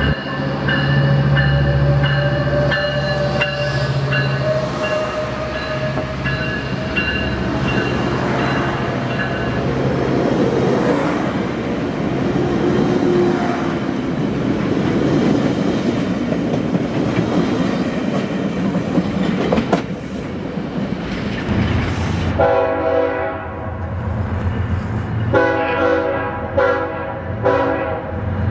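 Metrolink commuter train of bilevel coaches passing close by, with rumbling and rail clatter. After a break, a freight locomotive horn sounds two long blasts from an approaching train.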